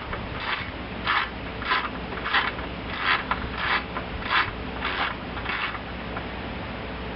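Ratchet wrench swung back and forth to undo the blower shroud bolts on a Briggs & Stratton engine, about nine rasping strokes a little over half a second apart that stop near six seconds in.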